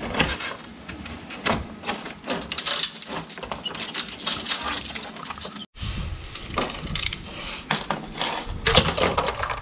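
Irregular metallic clinks, taps and knocks of hand work on the bay window, with a short break about halfway through before the clattering starts again.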